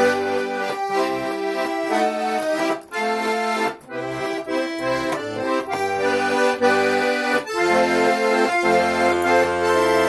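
A four-voice Russian garmon in C major, with four hand-assembled reeds sounding on each note, playing a lively tune with melody and left-hand bass and chord accompaniment. It has a full, powerful reed sound, broken by two brief dips near three and four seconds in.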